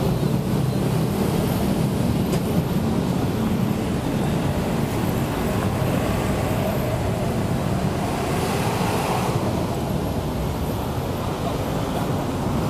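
Steady rumble of heavy vehicles moving close by, growing fuller in the middle range about eight to nine seconds in.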